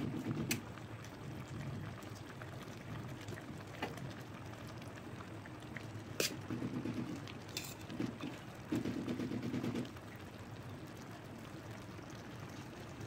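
Parboiled basmati rice being spooned into a kadhai of boiling chicken gravy, landing in three soft, rustling bursts of about a second each, with a few sharp clicks of the spoon against the pan in between.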